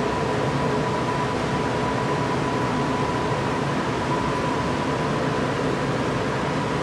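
Steady hum and hiss of commercial kitchen ventilation, with a faint steady high tone running through it.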